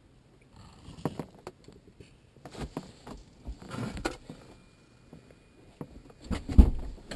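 Scattered clicks, knocks and rustles of hands handling things, with one heavy thump about six and a half seconds in.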